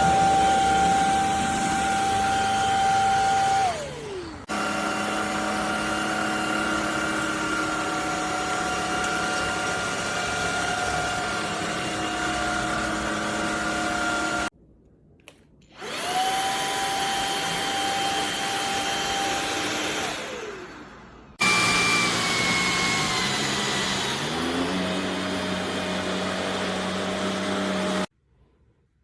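Cordless stick vacuum's motor running with a steady high whine, winding down when switched off a few times and spinning back up once. About two thirds of the way through, its pitch steps down to a lower speed.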